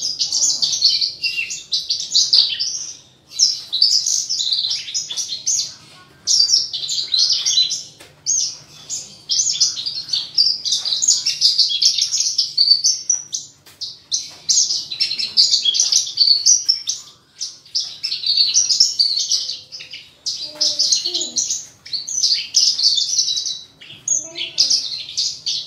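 Caged Horsfield's bush lark (branjangan) singing a fast, high, chattering twitter in phrases of a second or few, with short breaks between them.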